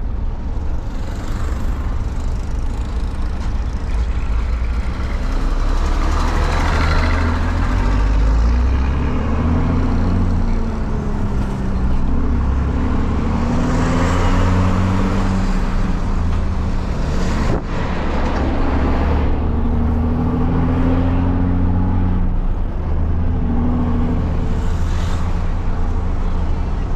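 Heavy truck's diesel engine with a straight-through (straight-piped) exhaust, rumbling as it is driven and accelerated through the gears. The engine note rises several times and drops back at each shift, with one sharp click about two-thirds of the way through.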